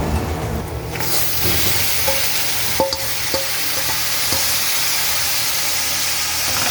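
Curry stew chicken frying in a hot pot, a steady sizzle that starts suddenly about a second in. A metal spoon knocks against the pot three or four times as it is stirred, each knock ringing briefly.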